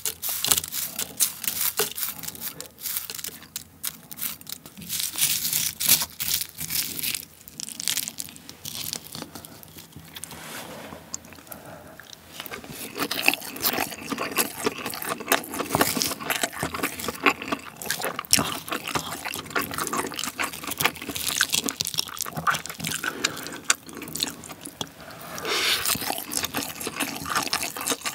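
Close-miked eating sounds: a wooden spoon stirring sticky rice mixed with crumbled seasoned laver in a ceramic bowl, with wet, crackly chewing of mouthfuls, heard as dense irregular clicks and squelches.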